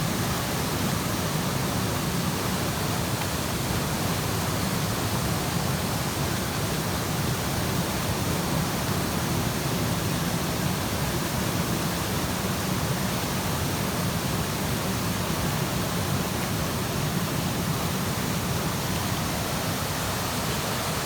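Creek waterfall rushing steadily, a loud, even, unbroken wash of falling water.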